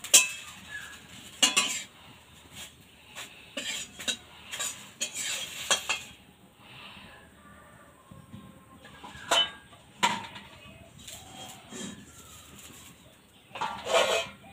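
A flat metal spatula scraping and tapping against a metal kadai and steel plates as a thin rice-and-lentil crepe is lifted off the pan, giving a string of sharp clinks and taps. The taps are sparser in the middle and bunch up again near the end.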